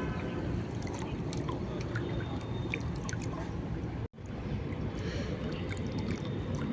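Ganges river water flowing and lapping, a steady rush with many small splashes and drips. The sound cuts out for an instant about four seconds in.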